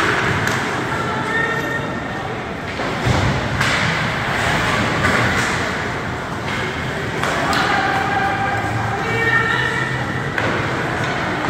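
Ice hockey game sound in a rink: a hubbub of spectators' and players' voices, with the sharp clacks and thuds of sticks, puck and bodies against the boards.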